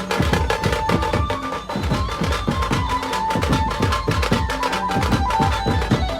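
Loud music with a fast, busy drum beat, a stepping high melody line and a deep bass line.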